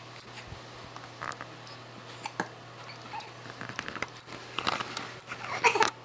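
Young baby's small mouth and breath sounds, ending in a short, loud vocal burst near the end.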